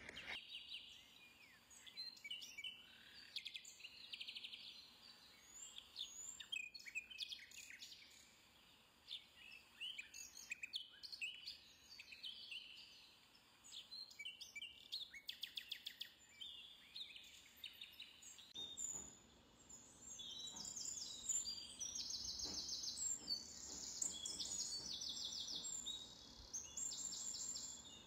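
Birds chirping and calling outdoors, many short calls and trills overlapping. In the last third, high rapid trills repeat almost without a break.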